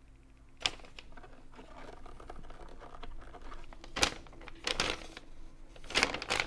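Plastic clicks, knocks and rustling from a compact steam iron being handled while its water filler is opened, with a few sharper knocks spread through.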